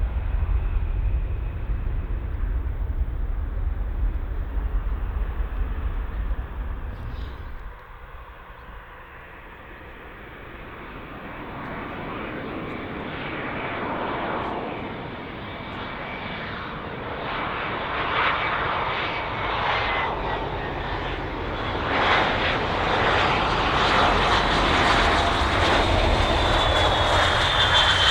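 Jet airliner engines growing steadily louder over about fifteen seconds as the aircraft comes close, with a high engine whine that glides down in pitch near the end as it passes. Before that, a deep low rumble fades out about seven seconds in.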